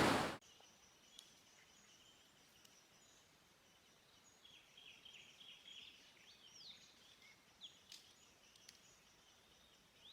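Rushing river water cuts off abruptly at the start, leaving faint outdoor ambience with small birds chirping: a run of short chirps in the middle and a rising call, plus a few faint ticks.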